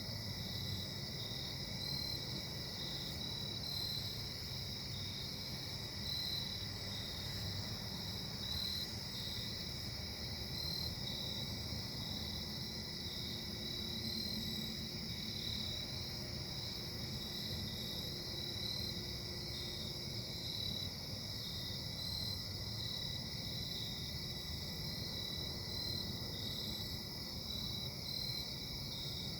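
Steady distant drone of industrial machinery from a casting plant: a low rumble with a thin steady whine above it, which the recorder puts down to bad bearings. Over it, a high chirping pulses about once a second.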